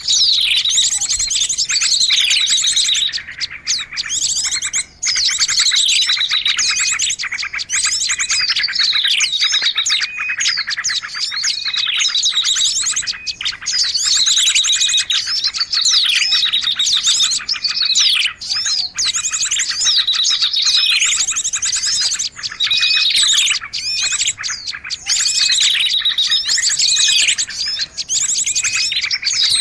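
A dense chorus of small birds chirping and twittering all at once, with quick falling whistled notes recurring every few seconds: a lure recording of small birds, played to draw wild small birds in.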